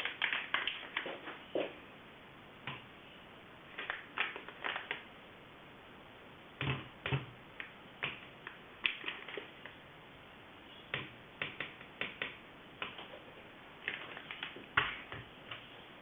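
A utensil clicking and scraping against a small container as a clumpy mixture is stirred by hand. The clicks come in irregular clusters, with pauses of a second or two between them.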